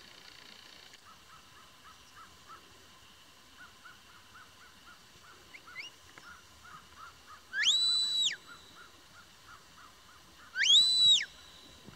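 Two long whistle blasts about three seconds apart, each sliding up, held steady and then dropping away: a shepherd's whistle giving commands to a herding dog working sheep.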